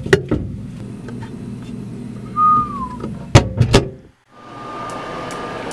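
Microwave oven door shut with a sharp click, followed by a few more clicks and knocks. A short tone drops in pitch in the middle, and a little after a brief cut to silence a steady hum sets in as the microwave runs.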